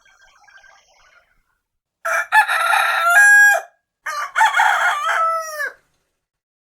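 Rooster crowing twice, each crow about a second and a half long and ending in a falling tail, after faint sound in the first second.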